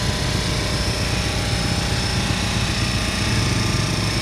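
A small engine running steadily: an even low drone with a fast pulse and a faint high whine.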